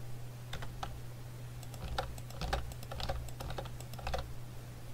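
Computer keyboard being typed on: irregular key clicks, some in quick pairs, over a steady low hum.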